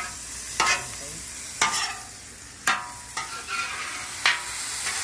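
Shrimp frying and sizzling in butter and oil on a Blackstone flat-top griddle. A metal spatula scrapes and clacks against the steel cooktop as the shrimp are tossed, with several sharp clacks about a second apart.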